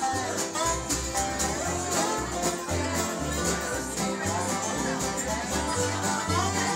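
Acoustic country-bluegrass band playing an instrumental stretch: strummed acoustic guitars, a lap-played resonator guitar with sliding lead lines, and a bass stepping between low notes about twice a second.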